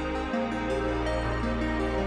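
Calm background music with sustained, overlapping tones; the low bass note shifts about a third of a second in.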